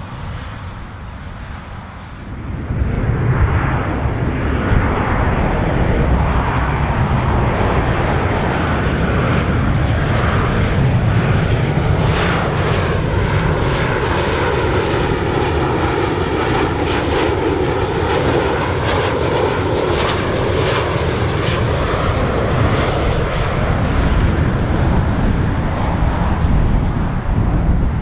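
Jet airliner on final approach passing low overhead to land. Its engine noise rises sharply about two seconds in and stays loud and steady, with sweeping, phasing tones in the middle as it goes over.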